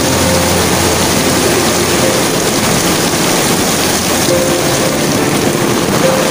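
Heavy rain pouring down onto a wet street, a loud, steady hiss, with a low steady hum underneath.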